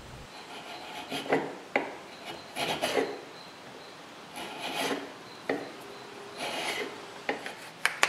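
Small hand plane taking thin shavings off the edge of a walnut block: about five or six short scraping strokes, some ending in a sharp click.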